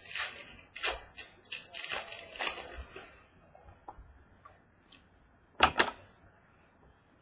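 Baseball cards and pack wrappers being handled: a quick run of rustles and clicks over the first three seconds, then quieter, with one louder rustle about five and a half seconds in.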